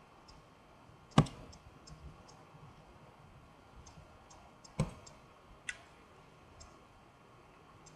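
Computer mouse button clicks: two sharp clicks about three and a half seconds apart and a softer one just after the second, each taking a frame in stop-motion capture software. Fainter light ticks fall between them.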